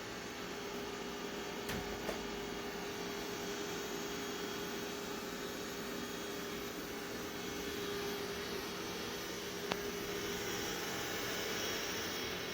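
Xiaomi X20 Pro robot vacuum running steadily: a constant whooshing motor noise with a steady hum, and a couple of faint clicks.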